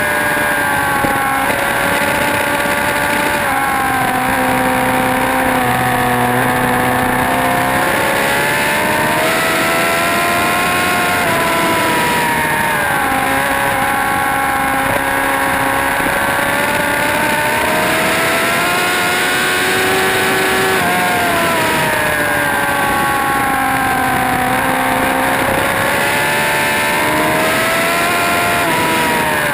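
Motorcycle engine at track speed, its pitch rising and falling every few seconds as the bike accelerates and slows through the corners, over a steady rush of noise.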